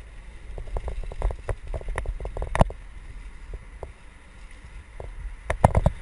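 Mountain bike rattling and knocking over a rough dirt trail, with clusters of sharp clacks in the first half and again near the end, over a low wind rumble on the helmet-camera microphone.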